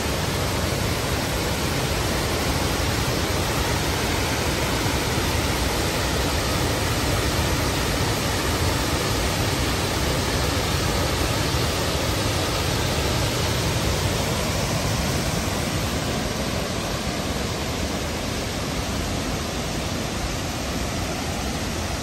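Waterfall in Ausable Chasm plunging into a rock gorge: a steady, even rush of falling water.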